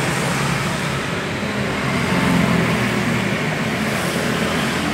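Small single-cylinder four-stroke petrol engine (Matsumoto MGX 100, 3.5 hp) of a portable water pump running steadily with a low, even hum.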